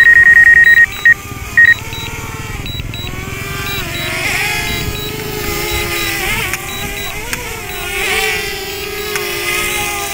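Controller app alarm beeping rapidly for about a second as the low-battery return-to-home countdown reaches zero, then two short beeps. After that, a DJI Mavic Air's propellers whine steadily, their pitch sliding up and down as the aircraft is manoeuvred, with a few faint clicks from the remote's control stick being pulled back and released.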